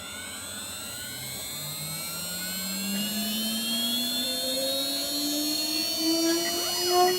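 Water-cooled 800 W spindle motor of a desktop CNC router spinning up at the start of a drilling cycle: a whine that rises slowly and steadily in pitch and grows louder, with a brief surge near the end.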